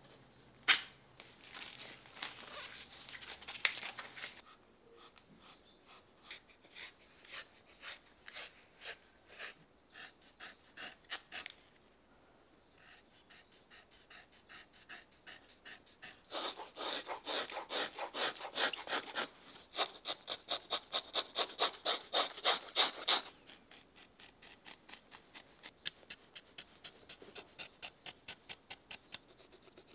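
Leather being rubbed and scraped by hand and hand tools on a boot, in runs of evenly spaced strokes: about two a second in the first half, then faster and louder strokes for several seconds past the middle, then a quick faint run near the end. A sharp click about a second in.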